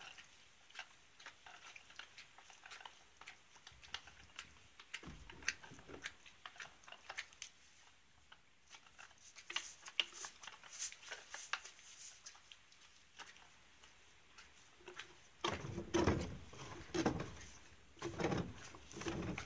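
A pony licking and mouthing a hanging Uncle Jimmy's lick: soft wet licking with many small clicks. From about 15 seconds in, several louder knocks and bumps as the lick is pushed about against the wooden stall wall.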